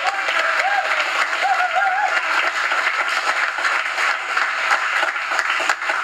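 A small group applauding, a dense steady patter of hand claps.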